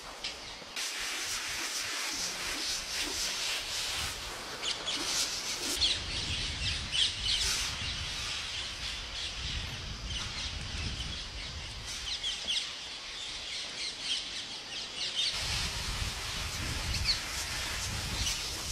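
A large flock of parakeets calling together, a dense chatter of many overlapping shrill chirps and squawks, with a low rumble that comes and goes underneath.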